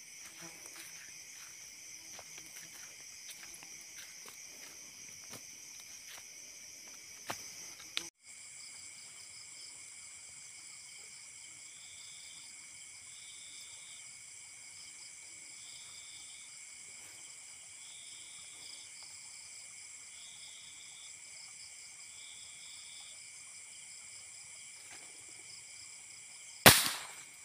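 A steady chorus of night insects such as crickets, with a short chirp repeating about once a second in the middle. About a second before the end, a single loud, sharp shot from a Tauros A2K airgun: the shot that brings down a roosting bird.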